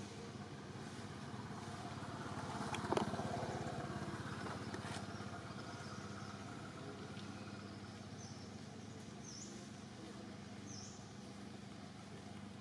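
Steady outdoor background hum with a motor vehicle, likely a motorbike, passing: it swells to its loudest about three seconds in, with a sharp click at the peak, then fades. A few short high chirps come near the end.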